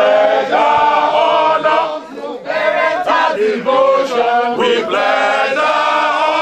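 A crowd of men and women singing a chant together in unison, phrase after phrase, with a brief lull about two seconds in.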